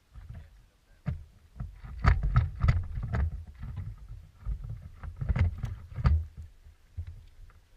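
Irregular knocks and slaps on a small fishing boat's hull, clustered in two busy spells, over a steady low rumble.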